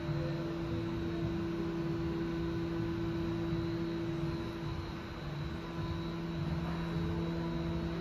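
Steady hum from a powered-up Haas VF-2SS CNC vertical machining center at idle, not cutting: even fan-like noise with a couple of low steady tones.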